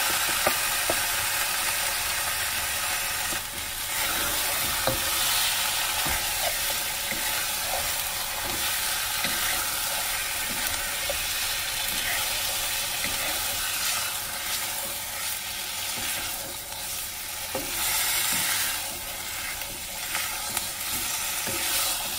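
Marinated lamb chops sizzling steadily in hot oil in a karahi (wok) with fried onions and spices. A wooden spatula stirs them, scraping and knocking against the pan in many small clicks.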